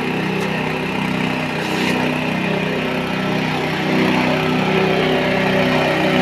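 Engine-driven forage chopper and grinder running steadily, its engine holding a constant speed.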